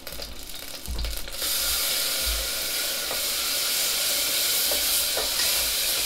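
Garlic sizzling as it sautés in a small saucepan, stirred with a spoon. The sizzle starts suddenly about a second and a half in, then runs steadily.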